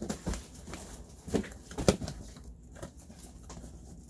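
A few short knocks and clicks of things being handled and set down, the sharpest a little under two seconds in.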